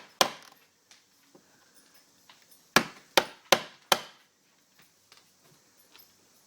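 A wood chisel being struck with a hammer to cut into a wooden door jamb: two sharp knocks at the start, then four quick blows about three seconds in.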